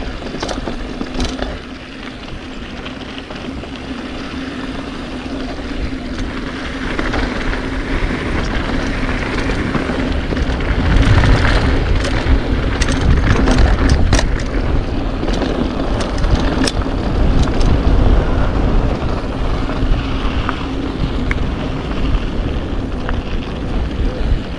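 A mountain bike descending a dirt bike-park trail: wind rushes over the microphone and the tyres run over dirt, with scattered clicks and clatters from bumps. The wind rumble grows heavier from about ten seconds in as speed builds.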